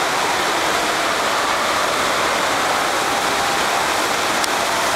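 Steady loud rush of water pumped at speed up the ramp of an indoor sheet-wave surf simulator, spraying and churning around a bodyboard.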